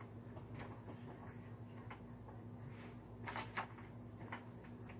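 Quiet room with a steady low hum and a few faint, scattered clicks and taps.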